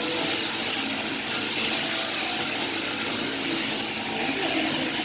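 Overhead-drive sheep-shearing machine running steadily, its handpiece cutting the fleece off a sheep.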